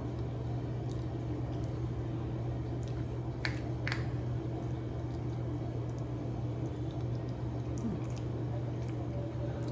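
Close-up eating sounds: wet chewing and mouth noises over a steady low hum, with a few short, sharp clicks.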